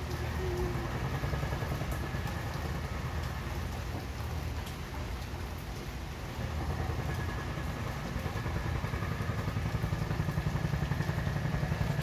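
Steady rain falling, with scattered drops ticking close by, over a low rumble of traffic that grows louder in the second half.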